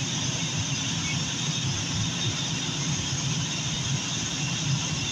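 A vehicle engine running steadily, a constant low rumble with an even hiss over it.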